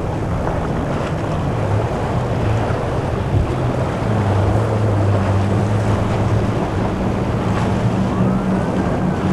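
Three Mercury 350 outboard motors on a SeaVee center-console boat running at speed, a steady low drone, with the rush of hull spray and wind.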